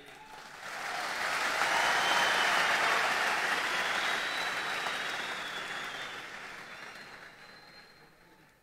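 Large crowd applauding, swelling within the first second and dying away over the last few seconds.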